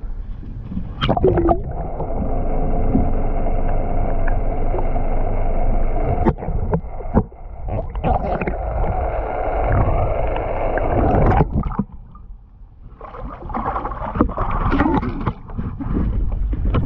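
Sound picked up by a camera held underwater: muffled gurgling and knocks over a steady hum. The hum cuts off after about twelve seconds, and rougher water noise follows as the camera comes up through the surface.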